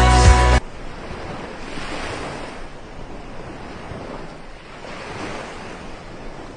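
Background music cuts off about half a second in, leaving ocean surf that swells twice as waves break, with wind on the microphone.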